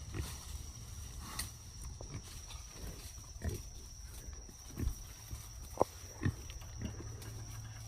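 Wild piglets giving short, faint grunts, about eight of them spaced irregularly, over a steady high-pitched tone.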